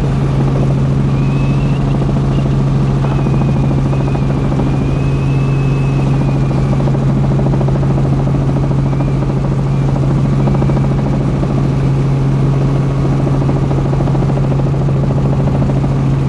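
Helicopter's rotor and engine heard from inside the cabin in flight: a loud, steady low drone with a fast, even beat of the blades.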